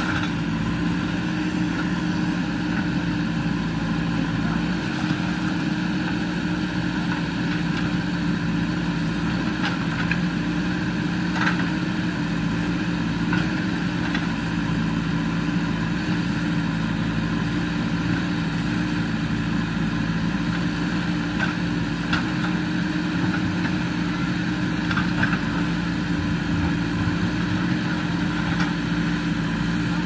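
JCB 3DX backhoe loader's four-cylinder diesel engine running steadily while the backhoe arm works, with a few faint knocks as the bucket works against the concrete culvert.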